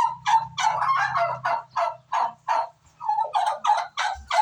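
Domestic turkeys calling: a fast run of short, rough calls, about three or four a second, with a brief break about three seconds in.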